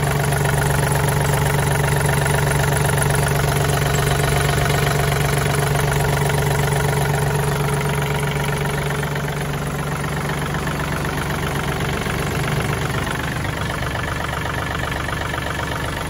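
John Deere 3036E compact tractor's three-cylinder diesel engine idling steadily, heard close to the engine bay. Its low hum eases somewhat about three-quarters of the way through.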